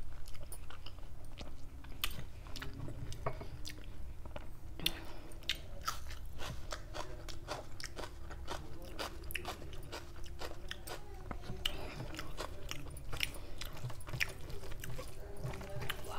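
A person chewing a mouthful of rice and chicken kofta curry eaten by hand, with many short mouth clicks and smacks throughout.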